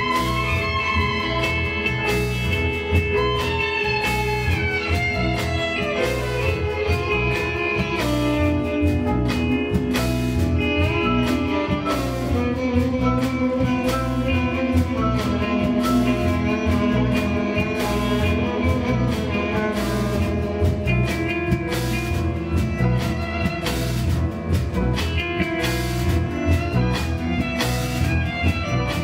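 Live experimental ensemble music: long held tones that slowly shift in pitch over frequent percussive strikes, with guitar.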